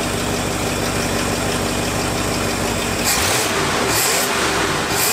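1968 Ford F-250's worn 360 V8 idling steadily while more fuel is fed on the carburettor's idle circuit. About three seconds in its note changes and a few short hissing bursts come in.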